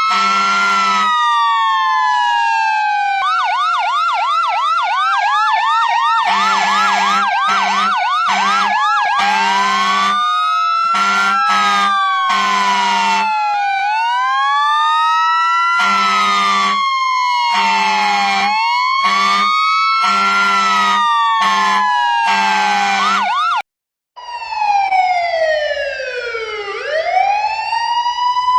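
Emergency vehicle sirens: a siren wailing up and down about every two and a half seconds, switching to a fast yelp for a few seconds about three seconds in, overlaid by repeated short horn blasts. Just before the end it cuts out for a moment and a different siren comes in with a slow, deep swoop down and back up.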